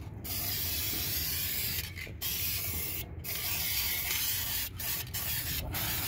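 Aerosol can of Krylon High Heat silver paint spraying, a steady hiss broken by several short pauses as the nozzle is released and pressed again.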